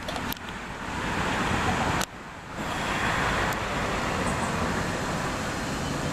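Steady background noise, a low rumble under a hiss, with a sudden brief drop in level about two seconds in.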